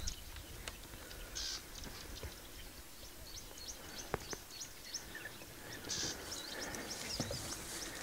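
Small birds chirping repeatedly in short high calls, with brief soft rustles of tall grass being brushed through, about a second and a half in and again about six seconds in.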